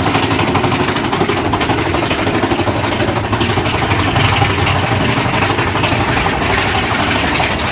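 Mine-train roller coaster running along its track: a steady loud rumble with a fast, dense rattle of the wheels and cars.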